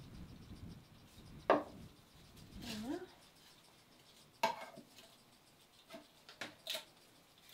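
Plastic mixing cups, a wooden stir stick and a small metal lid clicking and tapping on a counter as gel coat is mixed with its catalyst: a few sharp clicks, the loudest about a second and a half in, with lighter taps near the end.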